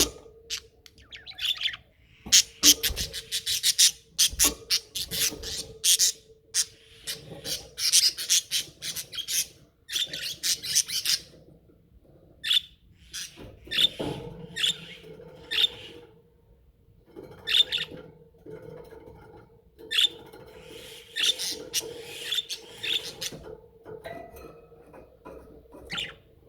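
Budgerigars chattering: dense runs of quick chirps, warbles and clicks, coming in bursts of a few seconds with short pauses between.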